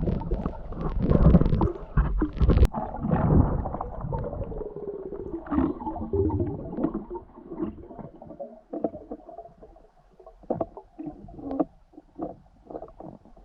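Muffled underwater sound of water moving and bubbling against the camera, with irregular low rumbles and knocks, busiest in the first few seconds and thinning to scattered knocks after about eight seconds.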